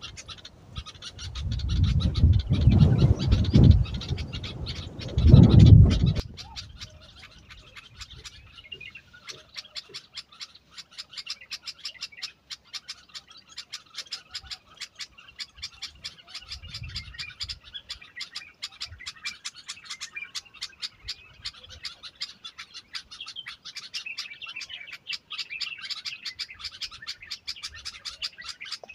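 Birds chirping in a dense, rapid chatter. Twice in the first six seconds a loud low rumble rises over it and dies away.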